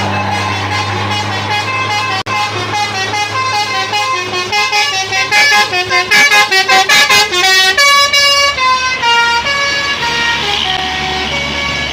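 Basuri telolet musical bus horn playing a tune of short stepped notes, with a quick staccato run in the middle and a falling run of notes near the end, over a bus engine idling.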